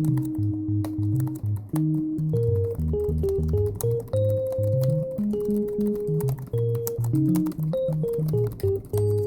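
Background music: a keyboard tune with a melody of held notes over a moving bass line. Faint clicks of computer-keyboard typing are scattered through it.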